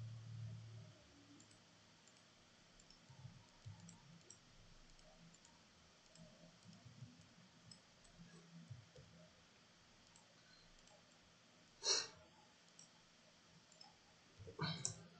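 Computer mouse clicks over quiet room tone: a few faint ticks, one sharp click about twelve seconds in, and a short cluster of clicks near the end.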